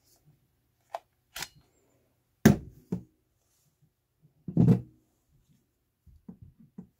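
Knocks and thuds of a Parkside Performance PABSP 20-Li B2 cordless drill's plastic body being handled and set down on a tabletop: scattered knocks, the loudest about two and a half seconds in and a cluster of heavy ones about four and a half seconds in, then a few light clicks near the end. The drill's motor is not running.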